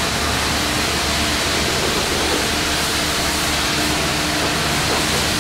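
High-pressure wand spraying water onto a car in a self-serve car wash bay: a loud, steady hiss of spray, with a faint steady hum from the wash equipment underneath.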